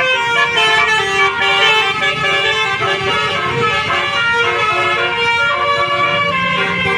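Tour bus's multi-tone telolet horn playing a tune, its notes stepping up and down with several pitches sounding together, over a low rumble.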